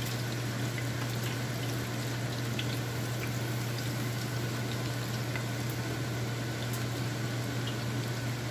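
Steady bubbling hiss of food cooking on the stove, over a constant low hum, with a few faint light clicks.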